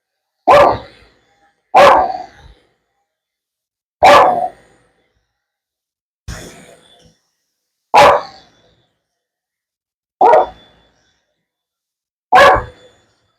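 A dog barking excitedly, single barks about every two seconds, seven in all, each echoing briefly in the room.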